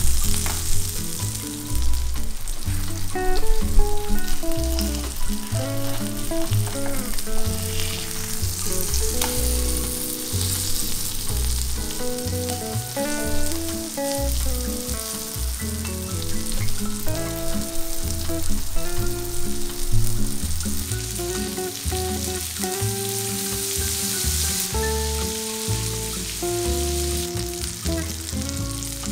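Tilapia fillets frying in butter and olive oil in a skillet, a steady sizzle, under background music.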